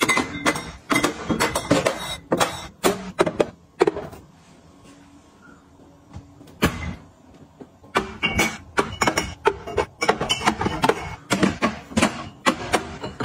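Rapid clicks, taps and knocks of small objects being handled and set down, with a quieter pause of a couple of seconds in the middle broken by a single knock.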